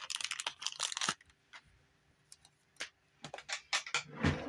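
Small clear plastic packaging bag rustling and crinkling as it is handled and opened, for about the first second. Then a few light clicks, and a short soft thump near the end.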